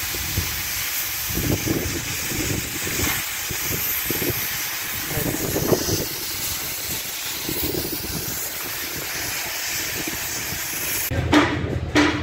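Oxy-fuel cutting torch hissing steadily as it cuts through a steel truck chassis frame rail. The hiss cuts off suddenly about eleven seconds in.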